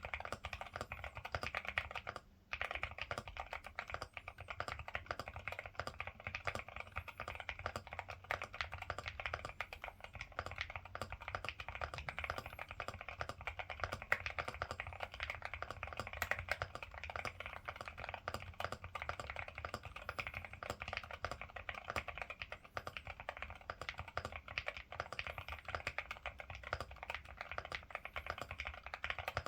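Ciddo V65 V2 mechanical keyboard with Akko Rosewood linear switches being typed on rapidly, a continuous stream of key clacks with a brief pause about two seconds in.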